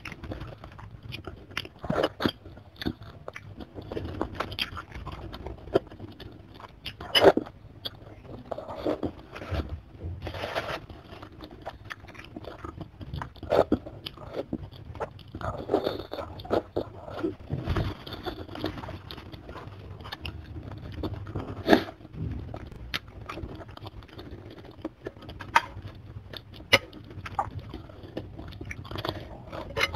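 Close-miked chewing and biting of soto ayam chicken pieces (feet and head) eaten by hand: wet chewing broken by irregular sharp crunches, the loudest about 7 and 22 seconds in.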